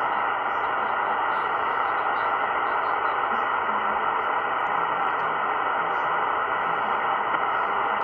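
Shortwave receiver in single-sideband mode on 14.240 MHz (20 metres), giving a steady hiss of band noise with no station coming through.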